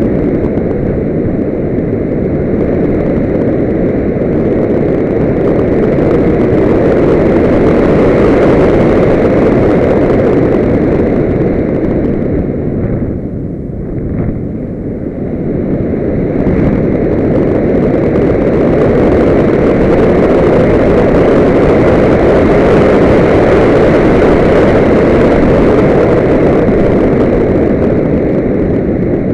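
Loud, steady rush of airflow buffeting the microphone of a camera mounted on a Solius radio-controlled glider in flight. It eases briefly about 13 seconds in, then comes back.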